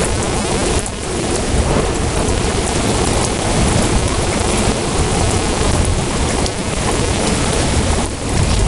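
Heavy rain pouring down steadily during a thunderstorm, with a low rumble of thunder underneath.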